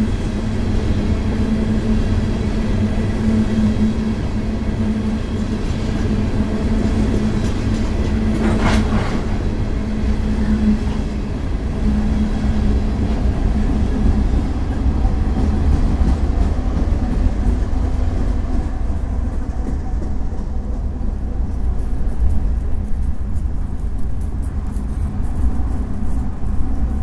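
Loaded coal hopper cars rolling past on the rails, followed by the train's rear distributed-power diesel locomotive pushing at the tail end. The rumble of the train passes about two-thirds of the way through, leaving a fainter low rumble near the end.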